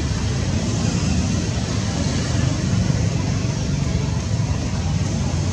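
Steady outdoor background noise: a low rumble with an even hiss above it and no distinct events.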